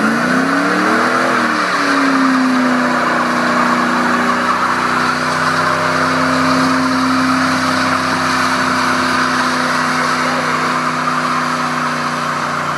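1993 Ford SVT Lightning pickup's 5.8-litre V8 doing a burnout: revs climb over the first second or so, ease slightly, then hold steady at high revs while the rear tyres spin and squeal continuously.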